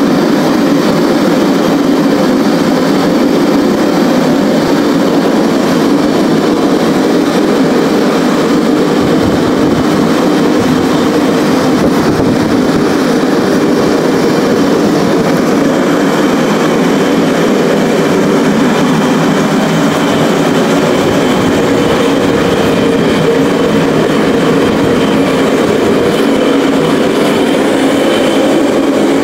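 Two propane burners firing a homemade firebrick forge, running steadily with a loud, even rush of gas and flame: the forge is at working heat.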